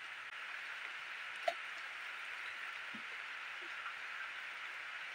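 A steady soft rain-like hiss, with one short sharp crack about a second and a half in and a few faint handling sounds as a machete splits open a smoked bamboo tube and the leaf-wrapped rice inside is pulled out.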